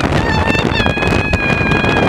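Wind buffeting the microphone on a moving boat's open deck, a loud rumbling rush, under background music with long held notes that change pitch about half a second in.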